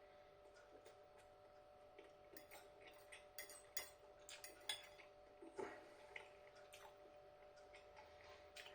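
Faint clicks and light scrapes of cutlery against the meal tray as rice and beans are scooped up, over a faint steady hum.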